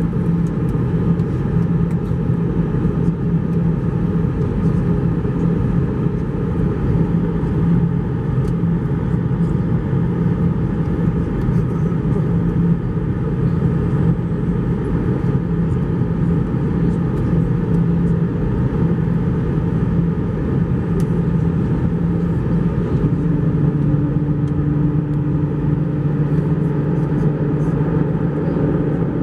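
Airbus A321 cabin noise heard from a window seat over the wing: the IAE V2500 turbofan engines and the airflow make a steady drone with a low hum. About 23 seconds in, the hum shifts in pitch as the engine setting changes.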